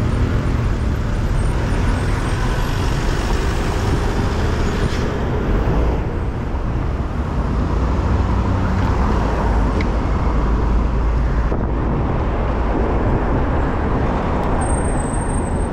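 Steady rush of wind over the microphone of a camera on a moving bicycle, with the noise of city street traffic around it.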